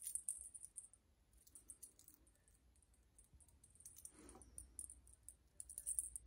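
Faint, light metallic jingling and clicking in several short bursts from a cat's collar tag and a wand toy's dangling charm as the cat bats at the toy, with one soft short sound about four seconds in.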